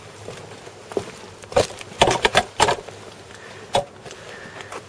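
A scatter of short knocks and scrapes, clustered about two seconds in, as a snagged fishing net is hauled up by hand.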